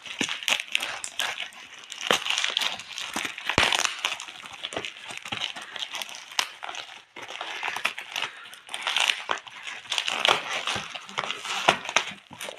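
Packing tape and plastic wrapping crinkling and tearing as a taped cardboard parcel is ripped open by hand, in a continuous run of crackles and rips with a brief lull about halfway through.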